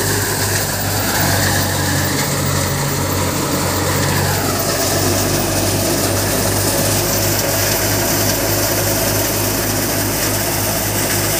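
Kamdhenu threshing machine running steadily while dry crop is fed into it: a continuous loud mechanical drone with a deep hum. A higher whine drops in pitch about four seconds in.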